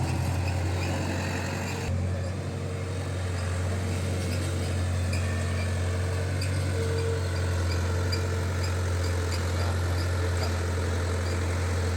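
Heavy diesel machinery engine running steadily with an even, low hum, its sound shifting briefly about two seconds in.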